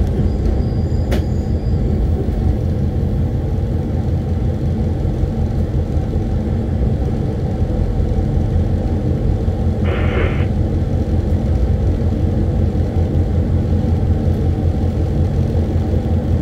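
CRRC Qishuyan (QSY) diesel-electric locomotive running light, heard from inside the cab: a steady low engine and running rumble, with a brief hiss about ten seconds in.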